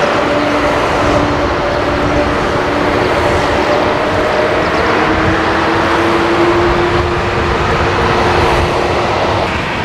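Airbus A320-232's IAE V2500 turbofan engines running at taxi power as the airliner rolls toward the runway: a steady engine rush with a few held tones, one of them rising slightly in pitch about halfway through.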